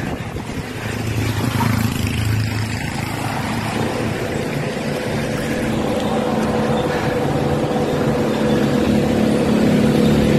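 Wind rushing over the microphone and tyres rolling on tarmac as a road bicycle descends a hill at speed, growing steadily louder as it picks up speed, with a low steady hum underneath.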